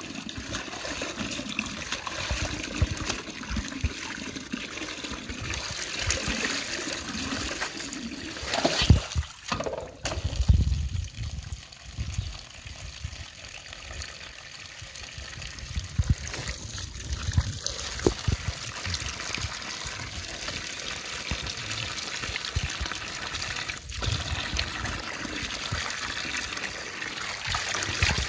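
A stream of tap water pouring into a steel basin while clothes are hand-washed in it, with splashing and sloshing of wet cloth. A few louder splashes and knocks come about a third of the way in.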